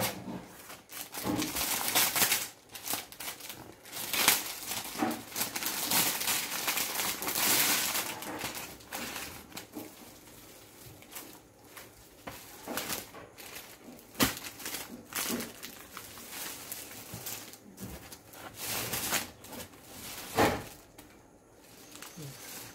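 Clear plastic saree wrappers crinkling and rustling as they are handled, in irregular bursts, loudest over the first several seconds and sparser after. There are a couple of sharp clicks later on.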